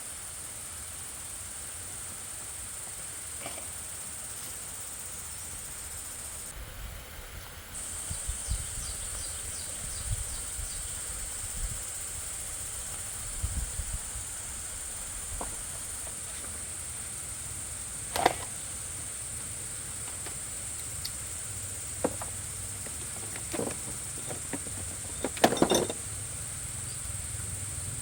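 A steady high hiss over a low rumble, with scattered sharp knocks and clicks; the loudest come about 18 seconds in and again near the end.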